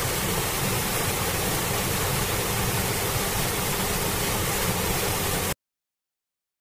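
A steady, loud rushing noise that cuts off abruptly about five and a half seconds in.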